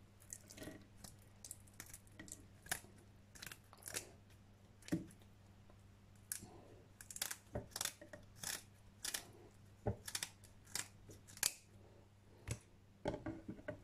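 Kitchen scissors snipping through a salmon's fins: a series of short, crisp snips at uneven intervals.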